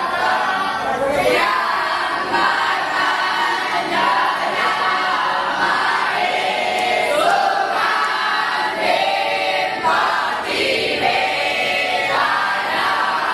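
A group of young Brahmin students chanting together in unison, many voices overlapping in a sustained chorus.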